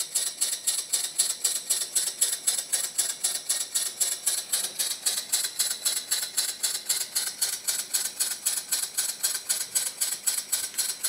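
Scratch-built horizontal mill-style model steam engine running on compressed air, its double-acting slide-valve cylinder exhausting in a quick, even chuffing rhythm of about three to four puffs a second. Air hisses steadily alongside, escaping past the poor seal between the slide valve and the port face: the valve is very leaky.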